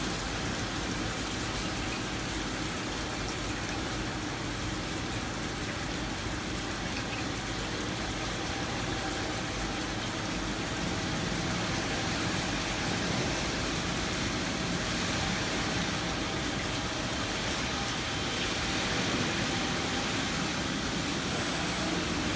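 GZC3535 CNC plate drilling machine running steadily at its tapping work: a constant mechanical hum with a few faint held tones under an even hiss.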